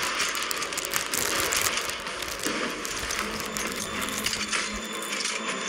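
Plastic potato-chip packet crinkling and rustling as hands dig into it, with chips being crunched, a dense, irregular crackle throughout.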